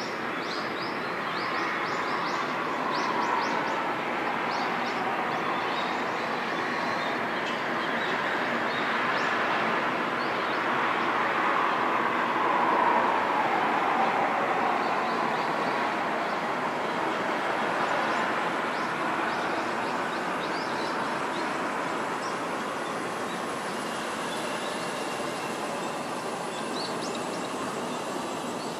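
Steady, broad roar of a passing vehicle. It swells to its loudest about halfway through, its pitch falling slightly, then eases off.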